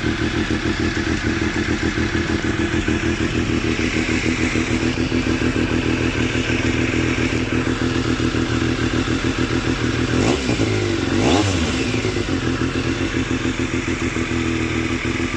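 Triumph Daytona 955i's three-cylinder engine idling through a short GR Moto aftermarket exhaust, with a fast, even beat. The throttle is blipped twice, briefly, about two-thirds of the way through.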